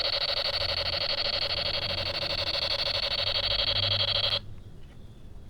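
Toy space gun's electronic shooting sound effect: a rapid pulsing, buzzy tone that cuts off suddenly about four seconds in.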